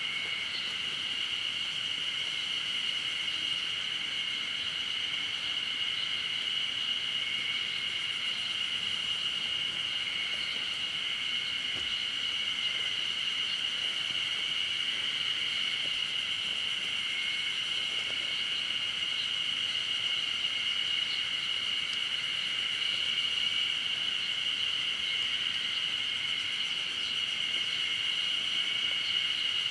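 Steady, high-pitched chorus of insects in a forest, holding one unchanging pitch throughout.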